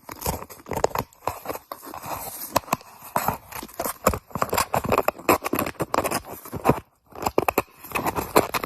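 Cat chewing and tearing at a cardboard box: a dense, irregular run of close crunching and ripping crackles, with a brief break about seven seconds in.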